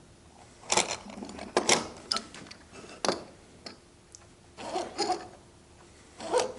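Mortise gauge pins scratching along the wood grain in about six short strokes, with a few sharp knocks of the gauge against the timber.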